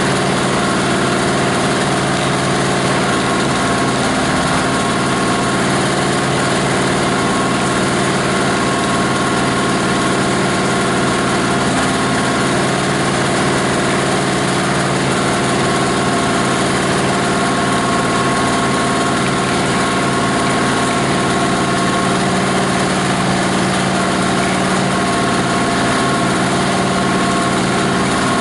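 The 18 HP diesel engine of a plastic-waste grinder running steadily at a constant speed, with several steady tones held over the engine noise.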